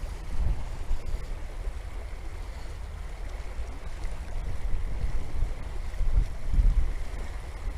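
Wind gusting across the microphone in low, rumbling buffets that swell and fade several times, over a steady rush of river water.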